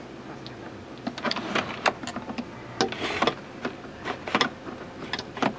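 Sunroof blind being slid shut by hand: a string of light, irregular plastic clicks and rattles.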